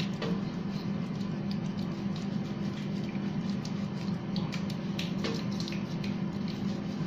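Hands rubbing foamy face wash over a wet face, with soft wet squishing and patting, over a steady low hum.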